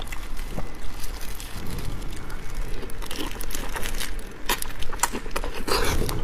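Disposable plastic gloves crinkling and prawn shells cracking as large chili-sauced prawns are pulled apart by hand and bitten. It comes as a run of irregular crisp clicks and crackles, densest near the end.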